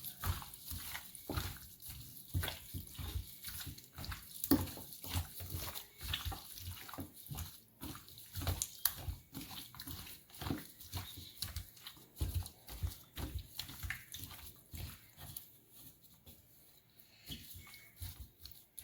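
Hands mixing seasoning and browning into raw chicken pieces: irregular wet squelching and slapping, several times a second, easing off near the end.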